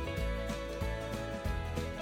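Background music with a steady beat and a plucked-guitar melody.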